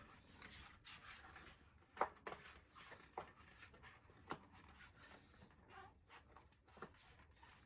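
Faint rubbing of a tubeless road tyre's bead being pushed over the rim by hand, with a few small clicks as it seats into the rim.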